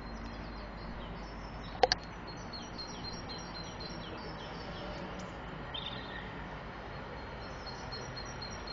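Small birds chirping again and again over a steady background rumble, with two sharp clicks in quick succession just under two seconds in.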